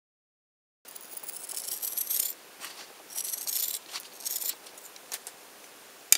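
Scissors cutting through plastic tape fletching on an arrow shaft: several crisp, rasping cuts in short runs, then a sharp click near the end.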